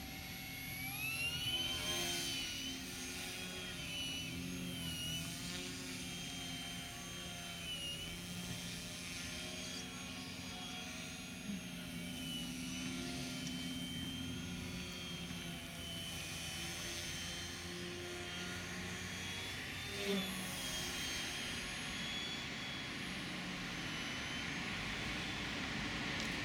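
Aeroworks Su-31 radio-controlled aerobatic model plane flying overhead, its motor and propeller making a steady whine. The pitch climbs in the first couple of seconds, then keeps rising and falling as the plane flies.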